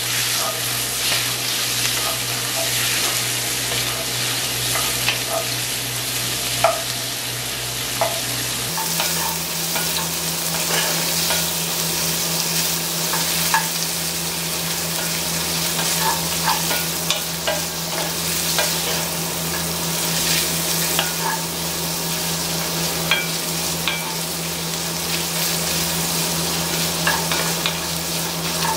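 Beef liver pieces frying in a cast-iron pot, sizzling steadily with scattered small pops and crackles, while being stirred and scraped with a wooden spatula.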